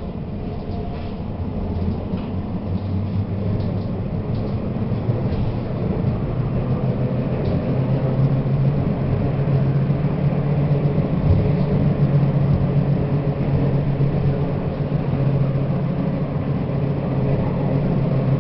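Tatra T4D-M tram running along the track, heard from on board: a steady rumble with a low hum that steps up in pitch about halfway through as the noise slowly grows louder.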